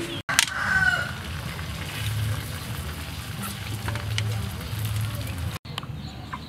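A pot of broth simmering, a steady bubbling crackle with scattered small pops.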